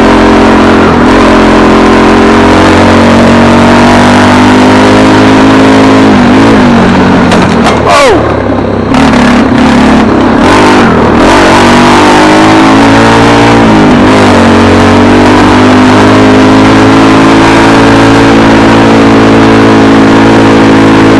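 Car engine running, its pitch dipping and rising a few times as the speed changes.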